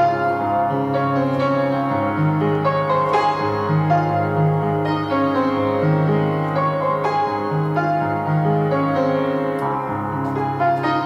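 Piano music, a melody of struck notes over held low notes.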